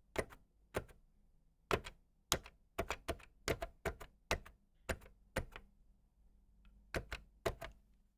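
Buttons on an old telephone being pressed one after another: sharp mechanical clicks at an uneven pace, some coming in quick pairs, about seventeen in all.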